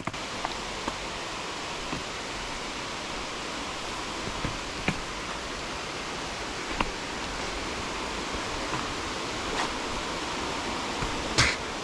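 Steady rush of water cascading down a mountain stream's falls, with a few faint ticks and a short louder scuff near the end.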